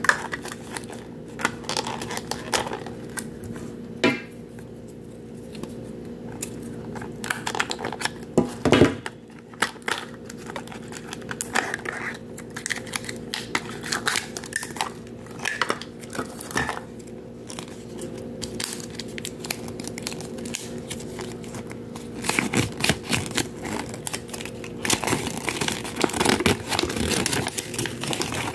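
Paper and plastic wrappers crinkling and tearing as a Mini Brands capsule is unwrapped by hand, with scattered small clicks and knocks of its plastic shell, busiest near the end. A steady low hum runs underneath.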